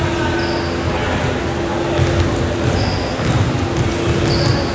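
Basketball game in a gym: a ball bouncing on the court, brief sneaker squeaks a few times, and players' voices echoing in the large hall.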